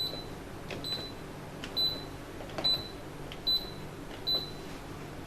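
Whirlpool washing machine control panel beeping as its keys are pressed one after another: six short high beeps, each with a faint click before it, a little under one a second. The keys are being pressed in turn to enter the machine's auto-diagnostic test routine.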